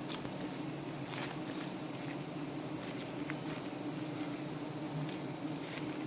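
Bees from a hive being harvested buzzing steadily in a low, wavering drone, with a constant high-pitched insect call over it and a few faint clicks.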